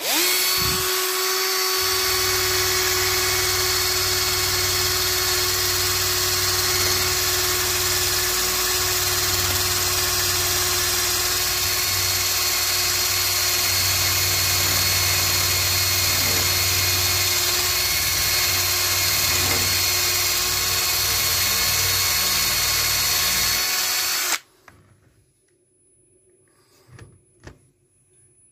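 Bosch drill spinning a wire drill brush against rusted chrome handlebars, scrubbing the rust off. It runs at one steady speed with a constant whine, then stops abruptly about four seconds before the end.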